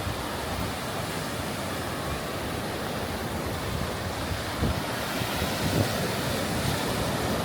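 Gulf of Mexico surf washing onto the beach in a steady rush, with wind now and then buffeting the microphone in brief low thumps.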